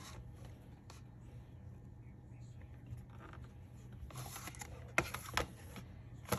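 Faint handling noise from hands moving a cardboard battery box and touching a phone on a desk: light rustles and a few small clicks, busiest a little past the middle, over a steady low hum.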